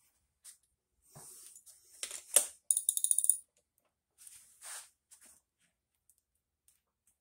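Metal tool handling: one sharp metal clack, then a socket ratchet clicking rapidly for under a second as it is set on the outboard's flywheel nut, with rustling of gloved hands before and after.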